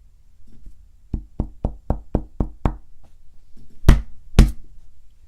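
Knocking on a hard surface: a quick run of about seven knocks, about four a second, then two louder knocks half a second apart.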